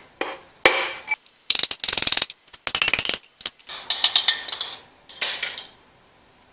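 A hammer strikes a brass rod held against a stuck piston in a tractor engine block: one sharp metallic blow, then a couple of seconds of rapid metallic rattling and clinking as the piston comes loose. A few more clanks follow as the hammer and rod are set down on the block.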